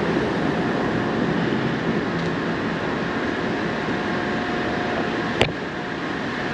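Steady background noise of city traffic and construction-site machinery, with a faint steady whine through most of it and a single sharp click about five and a half seconds in.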